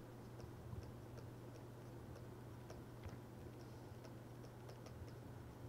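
Faint light clicks and taps of a stylus on a tablet as words are handwritten, a few irregular ticks a second, over a low steady hum.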